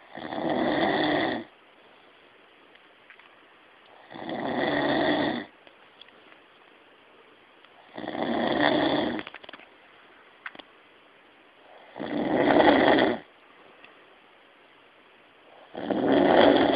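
A sleeping man snoring loudly, five long rasping snores on the in-breath at a steady rhythm of about one every four seconds, with quiet between them.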